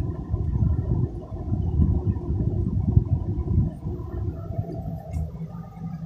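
Irregular low rumbling and rubbing from a handheld phone's microphone being handled, easing off about four seconds in to a quieter steady hum, with one sharp click about five seconds in.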